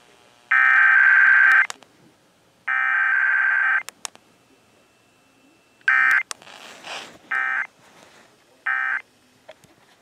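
Emergency Alert System digital data bursts over an FM radio: two long, harsh buzzing bursts of SAME header code about two seconds apart, then three short end-of-message bursts closing the test, with faint radio hiss between them.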